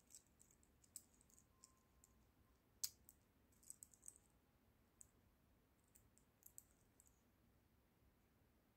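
Faint, scattered clicks and clinks of a watch's metal link bracelet and fold-over clasp being handled, with one sharper click about three seconds in.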